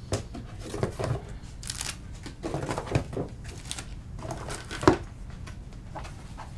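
Paper rustling and small objects being handled and put down: a run of irregular rustles and light knocks, with one sharper knock about five seconds in, over a low steady hum.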